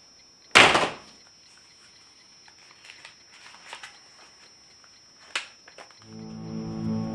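A door shuts with one loud thud about half a second in. Then come faint scattered clicks of calculator keys and a pen on paper, and near the end low, sustained music begins.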